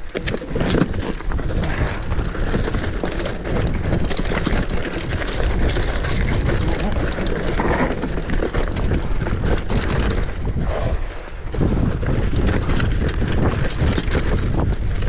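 Mountain bike descending a trail: wind buffeting the microphone over the tyres rolling on dirt and rock, with frequent clicks and rattles from the bike over bumps.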